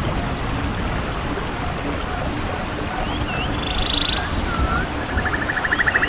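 Steady rain falling in a rainforest. Through it a low call repeats about twice a second, and in the second half there are short gliding whistles and rapid buzzing trills from forest animals.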